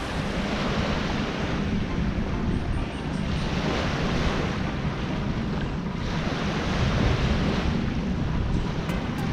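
Small waves washing up a sandy shore, the hiss swelling every second or two, over a steady low rumble of wind on the microphone.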